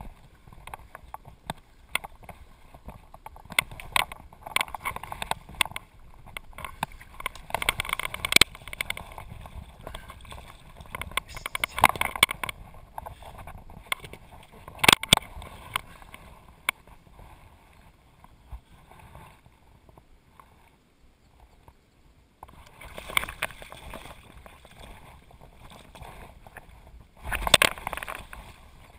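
Irregular knocks and rustling close by while a hooked salmon is played from the riverbank. Near the end the salmon thrashes and splashes loudly in the shallows as it is grabbed by hand.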